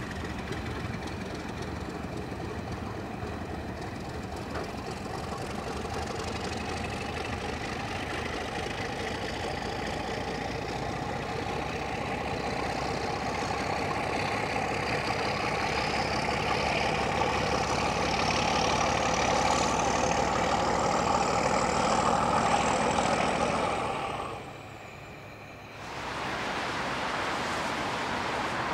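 Diesel engine of a yellow on-track maintenance machine running as it moves off along the line, with a whine that slowly rises in pitch and grows louder over about twenty seconds. The sound cuts off suddenly about 24 seconds in, and a steady hiss follows near the end.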